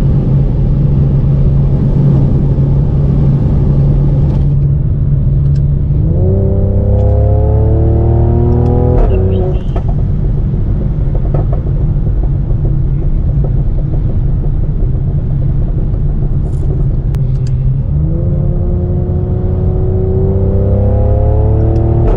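Modified Mercedes-AMG C43's twin-turbo V6 exhaust droning at a steady cruise, then twice accelerating hard with the engine note climbing steadily for three to four seconds. The first pull cuts off abruptly as the throttle is let off, followed by a few scattered pops.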